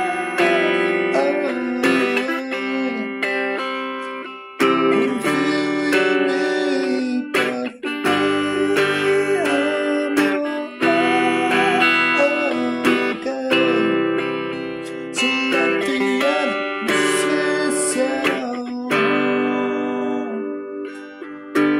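Electric guitar strummed in sustained chords with a clean tone, the chords changing every second or few with short breaks between phrases. A man sings along in places.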